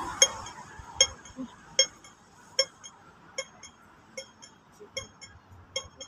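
Pedestrian crossing signal ticking: a sharp click repeating evenly, a little over once a second. The slow rate is the crossing's wait signal while the red man shows.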